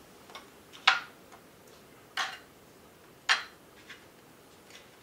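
Metal fork clinking against ceramic plates while eggplant slices are dredged in egg and flour: three sharp clinks roughly a second apart, with a few fainter taps between them.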